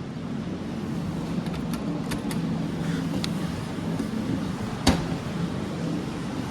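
Claw machine running: a steady low mechanical hum with a few sharp clicks, and one louder knock about five seconds in.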